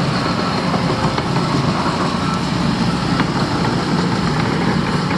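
Heavy diesel engine of construction machinery running steadily at idle, with a dense low rumble.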